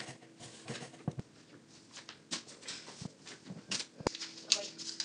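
A sheet of paper being handled and creased into a paper plane, giving irregular crisp rustles and sharp taps, with a faint steady hum behind.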